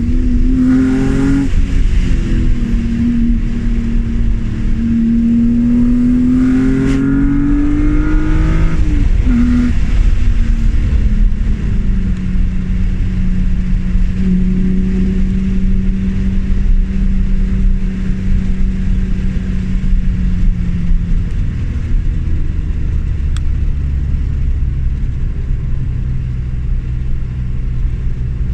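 BMW E36 M3's straight-six engine under acceleration: the revs climb, drop at a gear change about a second and a half in, climb again and drop at another shift around nine seconds, then hold steady before settling lower near the end.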